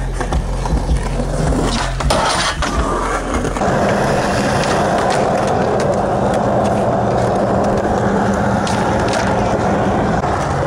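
Skateboard wheels rolling on smooth concrete, a steady rolling noise that sets in a few seconds in. Just before it there are a couple of sharp clacks of a board.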